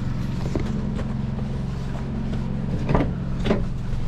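An engine idling steadily, with a couple of knocks near the end.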